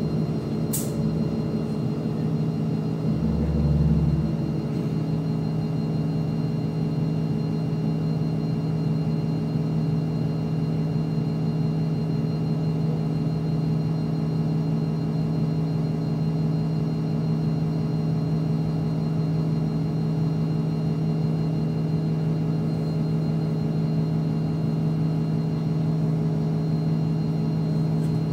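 NefAZ-5299 city bus heard from inside the cabin while it stands, its engine idling with a steady hum. A deeper rumble swells briefly about three to four seconds in.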